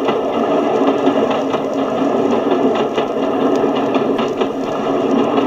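Archive recording of the Capitals Limited express train running, played from a vinyl sound-effects record through a small record player's speaker: a steady rush with little bass and faint irregular knocks.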